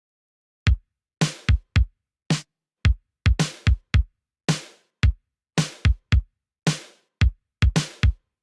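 A synthwave drum pattern from vintage drum-machine samples plays back: kicks with a falling pitch, and a snare with a reverb tail about once a second. It starts under a second in and stops just before the end.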